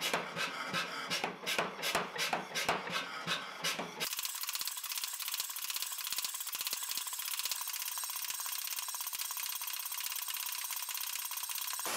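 Power hammer striking a hot pattern-welded steel billet, sharp blows about three a second. About four seconds in the sound turns into a faster, thinner, even rattle.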